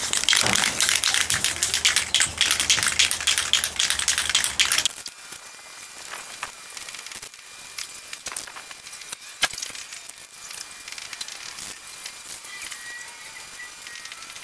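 Krylon Fusion aerosol spray paint hissing and crackling as a PVC pipe frame is sprayed; loudest for the first five seconds, then it cuts sharply to a much quieter hiss with scattered clicks.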